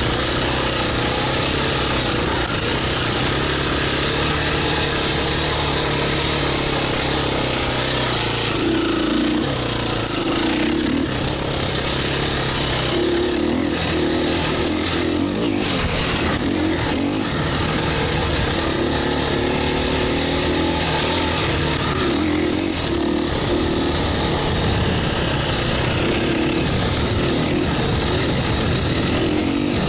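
2017 KTM 350 EXC-F's single-cylinder four-stroke engine running under constantly changing throttle on a trail ride. Its pitch rises and falls over and over as the rider opens and closes the throttle and shifts.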